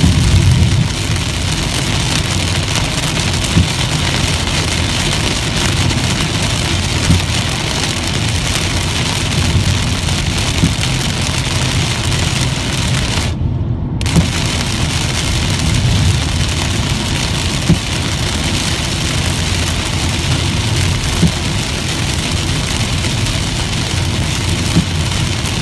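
Heavy rain hitting a car's roof and windshield, with tyre spray and a low engine and road rumble, heard from inside the car. Windshield wipers click faintly about every three and a half seconds. Around halfway through, the rain hiss cuts out for about half a second as the car passes under an overpass.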